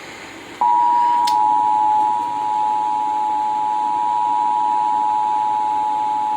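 Emergency Alert System two-tone attention signal: two steady tones sounding together in a continuous, loud drone. It starts suddenly about half a second in, with a brief click just after. It is the signal that announces an emergency alert message is about to be read.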